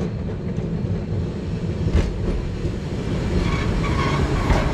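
Vintage tram running on its rails as it pulls up, a steady low rumble with a clack about two seconds in. A faint high squeal comes in over the last second or so.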